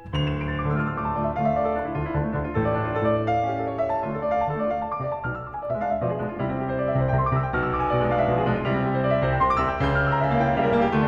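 Background piano music, a flowing piece of many overlapping held notes.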